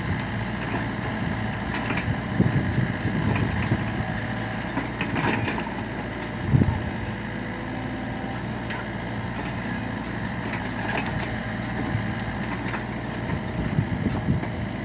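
LiuGong mini excavator's diesel engine running steadily under work, with a few short knocks and clanks from the machine, the loudest about six and a half seconds in.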